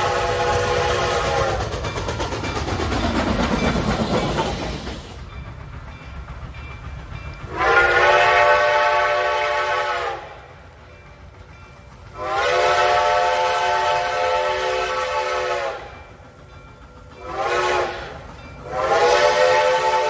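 Steam locomotive chime whistle blowing the grade-crossing signal: two long blasts, a short one, then a long one, each a chord of several steady tones. Before that, the end of an earlier blast and a sound that falls steadily in pitch.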